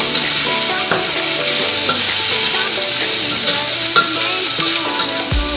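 Green beans sizzling in a hot steel wok as they are stir-fried, with a metal spatula scraping the pan and a sharp tap about four seconds in.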